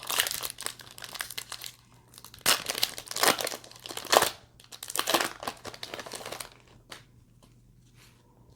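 Trading-card pack wrapper being torn open and crinkled by hand, in a run of uneven rustling bursts that stop about two-thirds of the way through.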